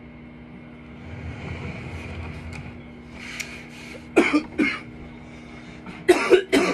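A man coughing: two coughs about four seconds in, then two more near the end, over a faint steady hum.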